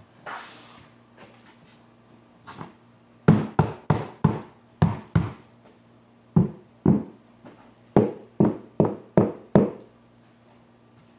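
A mallet knocking a luxury vinyl plank to seat and lock its click joint. It gives about a dozen sharp knocks in short quick groups, starting a few seconds in.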